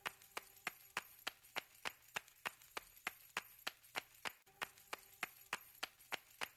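A steady train of sharp, evenly spaced clicks, about three a second, like a metronome beat, with a brief dropout a little past the middle.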